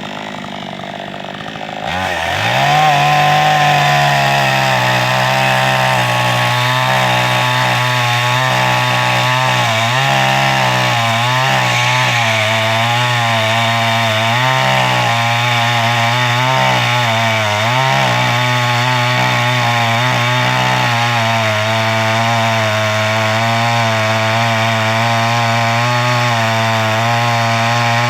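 Chainsaw that revs up about two seconds in, then runs at high revs cutting through a thick log. Its pitch wavers and dips now and then under the load.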